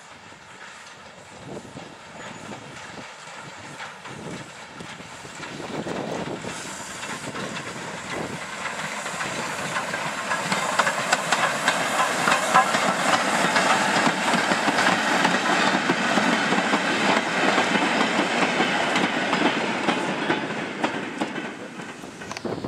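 LSWR O2 class 0-4-4T steam tank locomotive No. 24 'Calbourne' approaching and passing with its train. Steam exhaust beats and hiss grow louder, and the locomotive is loudest about halfway through as it goes by, with the rattle of wheels on the rails. The sound fades near the end.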